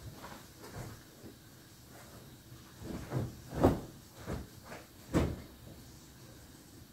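Laundry being handled at a folding metal clothes drying rack: a few short knocks and rustles as garments and hangers are pulled off the rack. The two loudest knocks come about three and a half and five seconds in.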